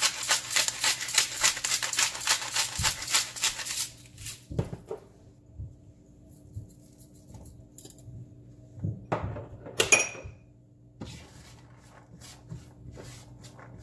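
Pepper grinder being twisted over a frying pan, a fast even run of grinding clicks, about five a second, that stops about four seconds in. A few soft knocks follow, then a sharp clink with a brief ring about ten seconds in. Near the end comes quiet scraping of a silicone spatula stirring corn kernels in a nonstick pan.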